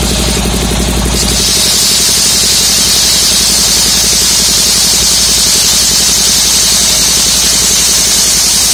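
Homemade circular-saw mill ripping a log lengthwise, driven by a Dongfeng engine. About a second in, the blade bites into the wood and a steady high-pitched cutting hiss rises over the engine's drone.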